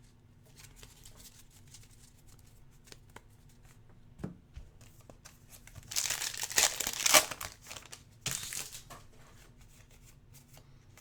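Plastic wrapper of a basketball trading-card pack being torn open and crinkled. The crinkling is loudest in a burst about six to seven and a half seconds in, with a shorter one just after eight seconds. Light ticks of cards being handled come before and between the bursts.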